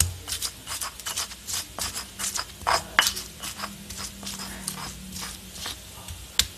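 Stone pestle knocking and scraping on a stone mortar (Indonesian ulekan and cobek) while crushing peeled garlic and shallots: a run of irregular light clicks and knocks, several a second.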